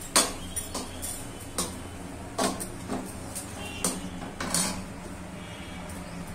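Metal pots, pans and utensils being handled in a kitchen: about ten scattered clanks and knocks, the loudest right at the start, over a steady low hum.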